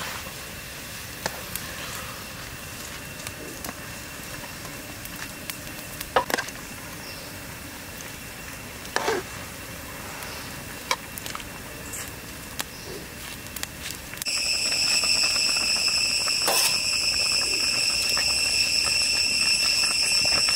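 Wood fire crackling with scattered sharp pops under a pan of simmering eel soup. About two-thirds of the way in, a steady high-pitched drone sets in and becomes the loudest sound.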